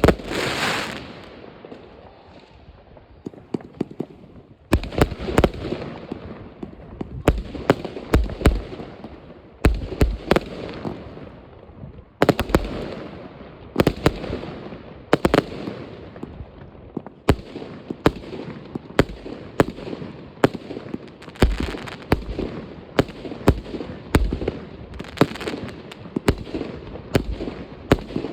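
Many fireworks going off at once: loud, sharp bangs one or two a second, often in quick clusters, over a constant background of fainter pops and crackle. A heavy bang comes right at the start.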